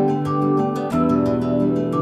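Background music: soft new-age style music with plucked, harp-like notes over held chords, changing chord about a second in.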